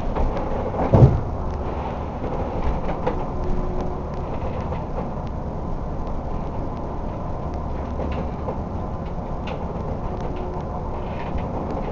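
Steady drone and rattling aboard a crab boat in a storm, with one heavy thump about a second in.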